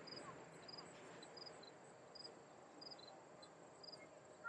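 Faint chirping of crickets: a short, high, three-pulsed chirp repeating steadily about every two-thirds of a second, over a faint background hiss.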